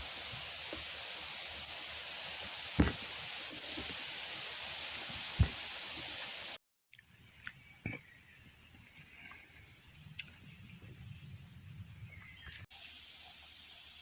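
Outdoor nature ambience dominated by a steady, high-pitched insect buzz, with a couple of light knocks in the first half. The sound drops out for a moment a little past halfway and comes back with the buzz louder.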